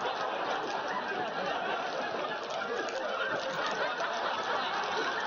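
Sitcom studio audience laughing steadily, a continuous wash of crowd laughter with no break.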